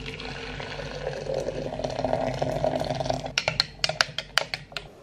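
Water poured into a glass French press over coffee grounds: a steady pour that grows louder as the press fills. Near the end comes a quick run of about eight sharp clicks.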